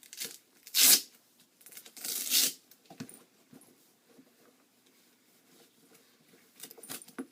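Two short tearing rips, the first about a second in and the second longer, from hook-and-loop straps on goalie leg pads being pulled apart, with lighter handling rustles of the pads near the end.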